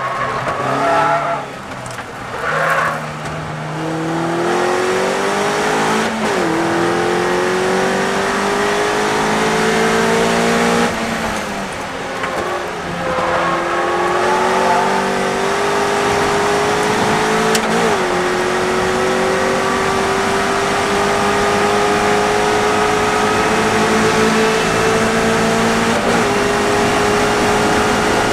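Westfield race car's engine heard from the open cockpit, accelerating hard with the pitch climbing steadily and dropping sharply at upshifts about six, eighteen and twenty-six seconds in. There are two short loud bursts about one and three seconds in, and a brief dip in revs around eleven seconds.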